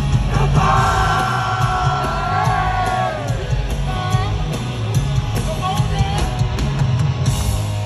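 Loud live concert music over a PA: a heavy, steady bass beat with a singer holding long notes over it in the first few seconds, then shorter vocal phrases.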